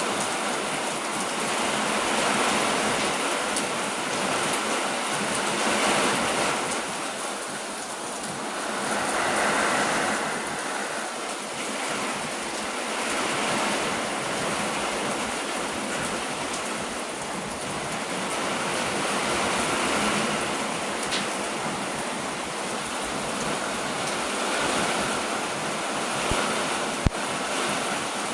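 Heavy rain pouring down in a steady hiss that swells and eases every few seconds, with one sharp click near the end.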